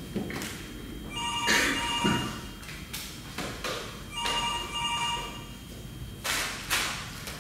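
A telephone ringing in short rings about three seconds apart, twice. Scattered knocks and footsteps on the stage fall between the rings, with two louder thumps near the end.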